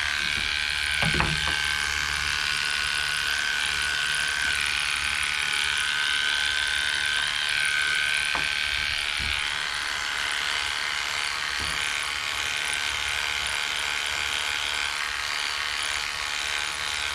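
Cordless electric dog clippers running steadily while cutting a dog's coat, the hum wavering slightly in pitch as the blade meets the hair. A few faint clicks occur here and there.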